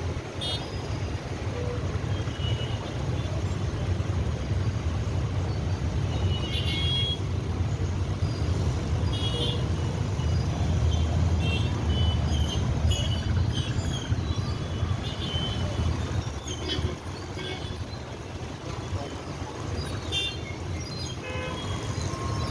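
Busy road traffic: a steady low rumble of passing vehicles, with short horn toots from different vehicles every few seconds.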